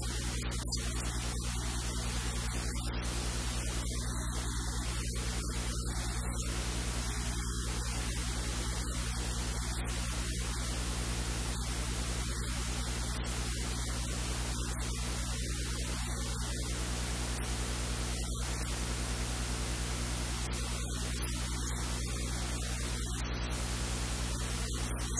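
Steady electrical static hiss over a low mains hum and its overtones, broken here and there by brief dropouts, with no other sound on top.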